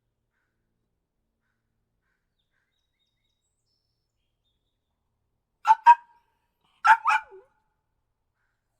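After more than five seconds of silence, a puppy gives two quick pairs of high yaps about a second apart, the last one trailing off lower.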